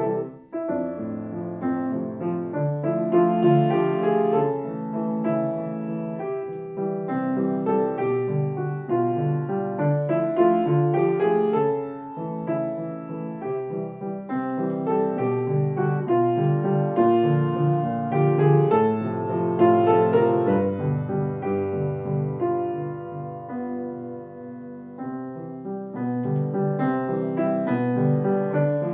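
Solo grand piano playing a waltz: chords in the bass with a melody above, continuous, with a brief drop in loudness just after the start and a softer passage about three quarters of the way through.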